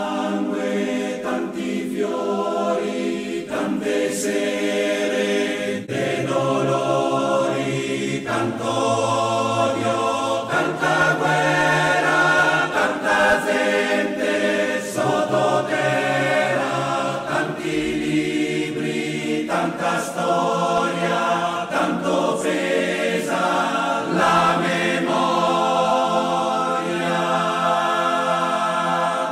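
Men's choir singing a cappella in close harmony: slow, sustained chords held in long phrases, changing every second or two.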